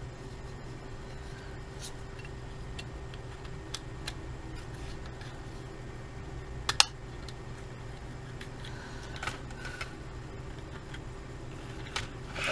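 Small sharp clicks of a Sony TC-55 cassette Walkman being handled and its buttons pressed, the loudest about seven seconds in, over a steady low hum. No tape motor is heard: after a belt replacement the motor is not spinning.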